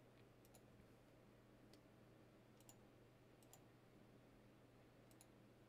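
Near silence with a faint low hum, broken by a few faint clicks of a computer mouse, some in quick pairs.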